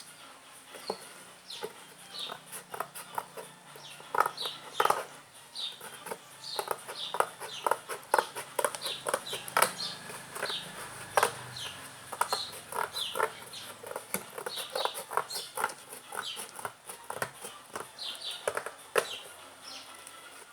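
Cardboard box being cut by hand: an irregular series of snips, crunches and tearing clicks as the blade works through the glued cardboard.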